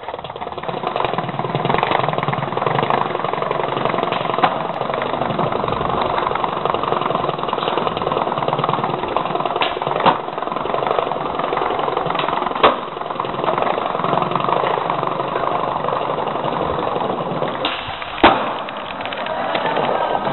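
Skateboard wheels rolling on a hard, smooth floor, a steady rumble, with four sharp clacks of the board spread through.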